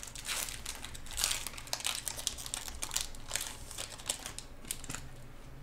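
Foil wrapper of a Pokémon trading-card booster pack crinkling as the pack is opened and the cards are drawn out. It makes a run of irregular crackles that dies away about five seconds in.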